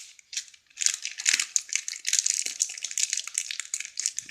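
Plastic wet-wipes packet being crumpled and squeezed, a dense irregular crinkling that starts about a second in and goes on continuously, used as a home-made sound effect.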